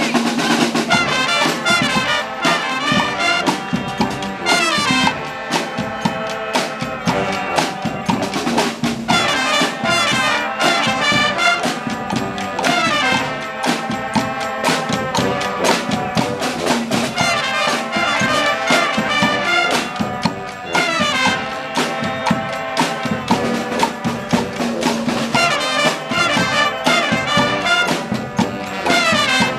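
Community street band of brass horns and drums playing. The horns carry a melody in held and moving notes over a steady beat of drum hits, striking up all at once at the start.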